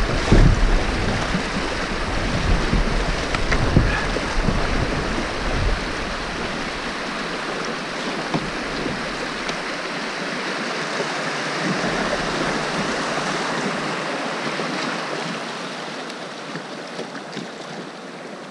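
Shallow river rapids rushing around a plastic kayak, with a few knocks from the paddle and hull in the first several seconds. The rush of water eases off near the end as the kayak slides into calmer water.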